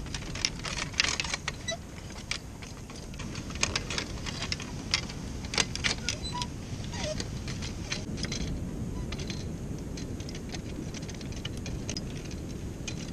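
Irregular clinking and rattling of a loaded beach fishing cart, with rods in their holders and the frame knocking as it is pulled over sand. This goes on over steady wind and surf noise and dies away about two-thirds of the way through, leaving the wind and surf.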